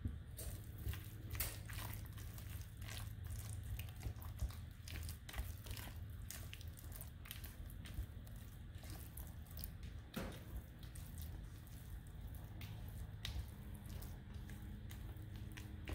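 Blue silicone spatula folding blueberries and banana chunks into thick muffin batter in a glass bowl: irregular soft wet squelches with scattered clicks as the spatula works the batter.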